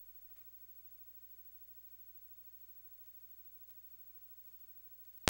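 The sound almost drops out, leaving only a faint steady electrical hum, broken by a sharp click at the very end.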